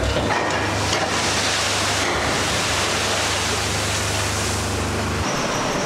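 Coal pouring out of the opened bottom doors of hopper wagons into a pit beneath the rails: a steady rushing noise, with a low hum underneath that cuts off near the end.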